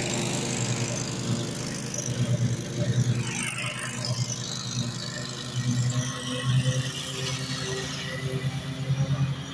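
Zero-turn riding mower's engine running steadily under load while cutting grass, a low hum that pulses slightly.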